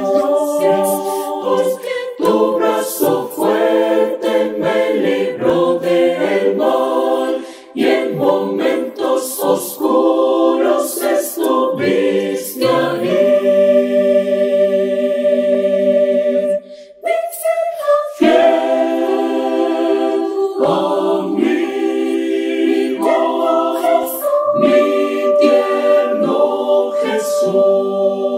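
Mixed choir of women's and men's voices singing a Spanish hymn a cappella, several parts in harmony. There are brief breaks between phrases about 8 and 17 seconds in.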